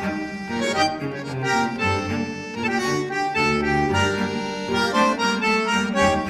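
Background music: a melody of held notes over a changing bass line.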